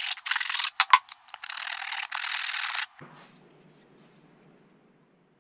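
Hand sanding the edge of a G10 (FR4) fiberglass sheet with a sandpaper-covered wooden block: a series of quick, scratchy back-and-forth strokes that stop abruptly about three seconds in.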